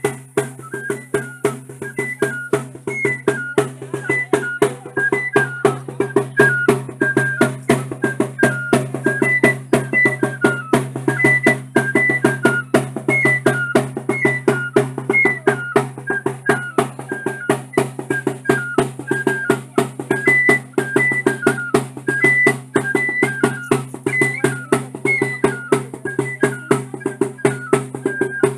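Traditional flute-and-drum music: a short, high piped melody repeats over quick, steady drum beats, with a low steady hum underneath.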